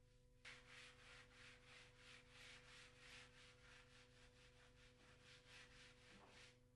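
Fine glass paper rubbing back and forth over dried undercoat on wood, lightly sanding it down before the top coat, in faint, even strokes about three a second that start about half a second in.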